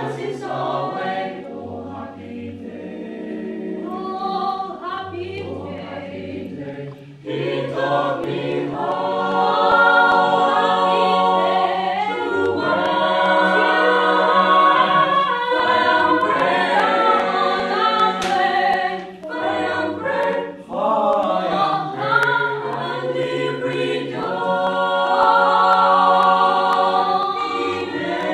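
A small choir singing a cappella: softer at first, then the voices come in fuller and louder about seven seconds in.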